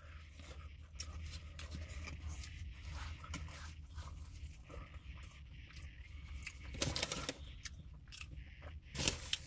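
Paperboard fast-food box rustling and crinkling as it is handled close by, with biting and chewing of a soft apple turnover. A few louder crinkles come about seven and nine seconds in.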